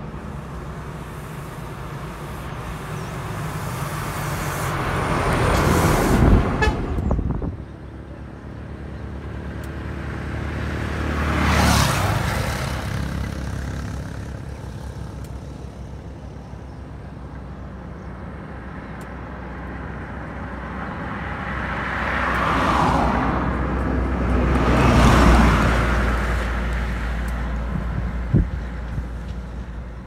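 Motor vehicles passing close by on a highway one after another. There are about four pass-bys, each swelling and fading over a few seconds, over a steady low rumble.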